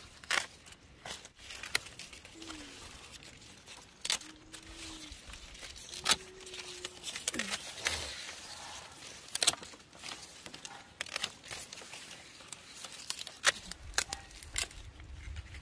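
Irregular crinkling and tearing with sharp crackles, as of something being handled, plus a few faint, short pitched calls.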